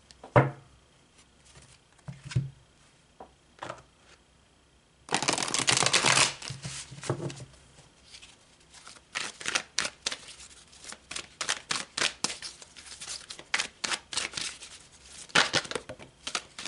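A deck of cards being shuffled by hand: a few light knocks at first, then a dense burst of rustling about five seconds in, followed by a long run of quick card flicks.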